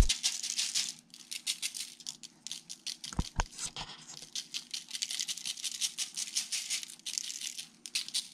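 Lemon pepper seasoning shaken from a shaker jar: runs of rapid rattling shakes, pausing briefly about a second, four seconds and seven seconds in. Two dull knocks come a little after three seconds in.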